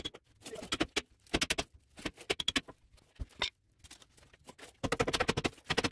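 Bursts of rapid metallic clicking and tapping from hand tools working on a pickup's rear leaf spring pack, with the densest run of clicks about five seconds in.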